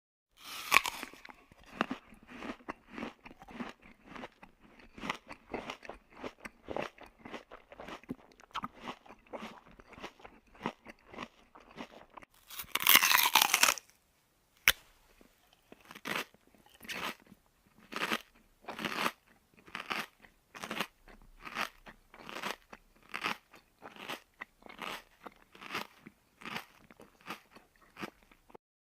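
Close-up eating sounds: a mouth chewing food steadily, then a loud crunchy burst about halfway through, followed by regular crunchy chews about one a second.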